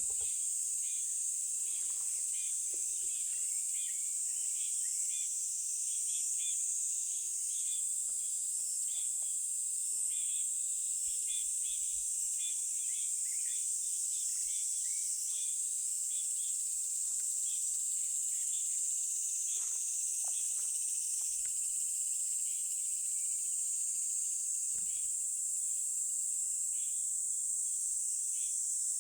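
Forest insect chorus: a steady high-pitched drone, with many short high chirps scattered over it.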